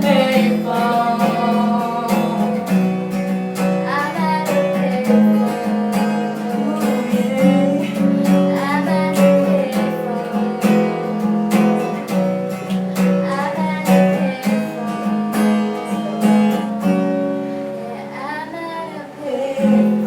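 Acoustic guitar strummed in a steady rhythm, playing the closing chords of a pop song, tailing off near the end.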